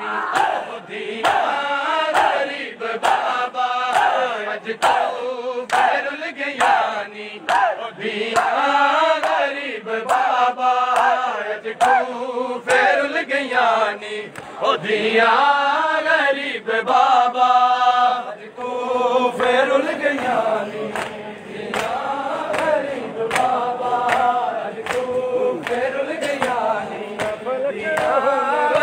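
A large crowd of men chanting a noha in unison, with sharp slaps of hands striking bare chests (matam) keeping a steady beat under the voices.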